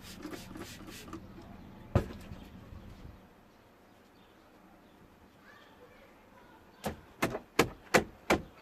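A water spray bottle being squirted: one sharp squirt about two seconds in, then six quick squirts near the end, about three a second.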